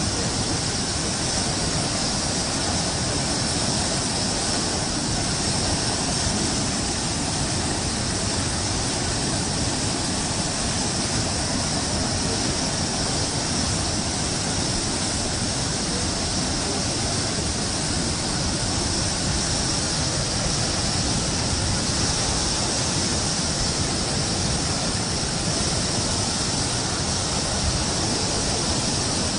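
Muddy floodwater of a river in spate rushing and churning past, a steady unbroken roar of water.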